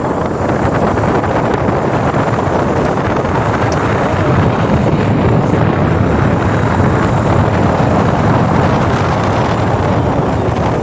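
Steady wind noise on the microphone of a moving motorcycle, with the bike's engine running underneath.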